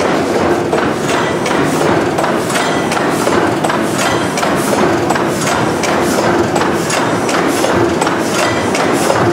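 Large old stationary gas engines running, with about three sharp clicks or knocks a second over a steady hum.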